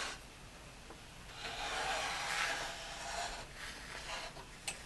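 Wooden base of a Wimshurst machine sliding and scraping across a wooden desktop as it is turned by hand, a rub of about two seconds. A small click comes near the end.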